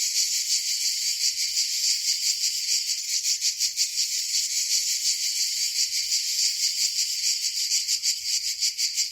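Cicadas singing in a steady chorus, a shrill, fast, regular pulsing.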